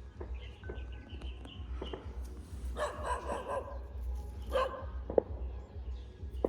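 Shiba Inu barking a few short times, the longest bark about three seconds in.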